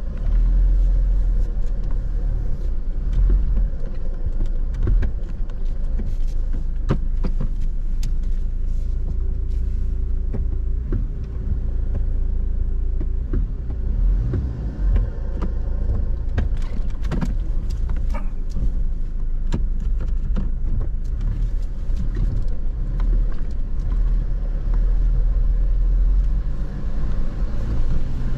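A vehicle driving over a rough track: a steady low rumble of engine and tyres, with frequent irregular rattles and knocks.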